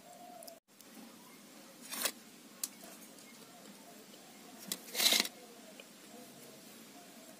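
Stainless steel dishes being handled as food is served: a few light clinks, then a brief louder clatter about five seconds in.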